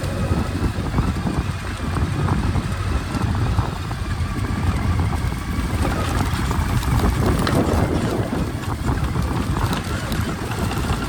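Motorcycle under way: steady engine and road noise, with wind buffeting the helmet or body-mounted microphone.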